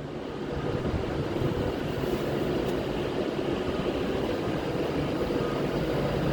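Class 196 diesel multiple unit running into the station platform, its engines and wheels making a steady noise that builds in the first second and then holds.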